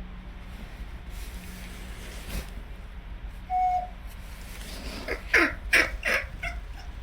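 Baby monkey giving a run of quick, high squeaky calls, each falling in pitch, about five seconds in, after a single short steady peep a little past halfway.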